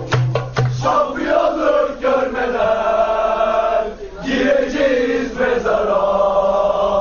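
Crowd of football supporters singing a terrace chant in unison on long-held notes, with rhythmic beats that stop about a second in. The chant breaks for a breath about four seconds in.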